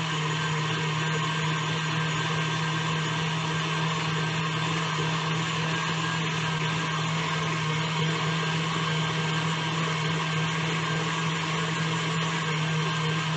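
Electric mixer motor running at a steady speed, whipping a batch of shea butter lotion in the bowl.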